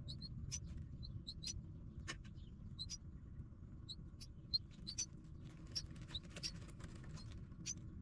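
Faint, short high-pitched chirps from nestling birds, coming irregularly several times a second, over a steady low background rumble.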